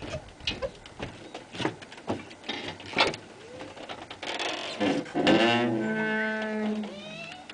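Giant wooden walk-in wheel turning under a runner: scattered knocks and thuds of feet and wood. About two thirds of the way in comes a long creaking squeal, with several pitches, some of them sliding, lasting about two seconds.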